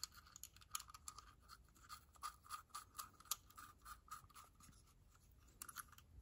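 Faint, irregular small metallic clicks and scraping as the breaker plate and points of a 1946–48 Ford flathead distributor are handled and fitted into the housing by hand.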